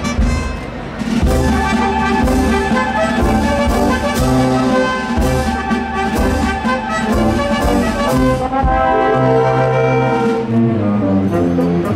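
Band music led by brass, with trombones and trumpets holding sustained chords over a strong bass and a steady drum beat.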